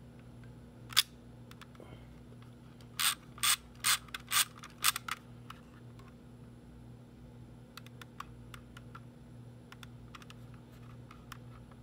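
Small plastic mechanism of a Nishika N9000 four-lens 3D film camera being worked by hand, giving ratchet-like clicks: a single sharp click about a second in, then a run of five or six clicks over the next two seconds, then faint ticks. A steady low hum lies underneath.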